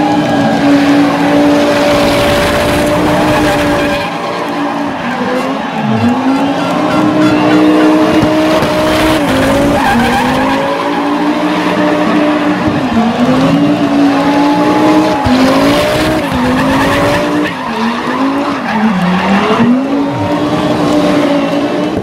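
A rally car's engine held at high revs while it spins its tyres in smoke, with tyre squeal. The revs dip briefly and climb back several times.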